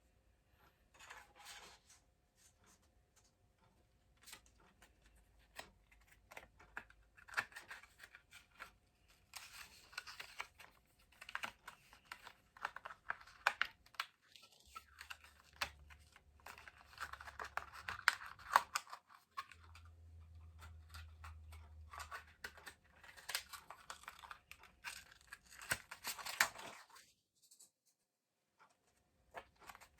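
Close-up handling of small plastic parts: spells of rustling and crinkling with many small clicks and taps, stopping briefly near the end.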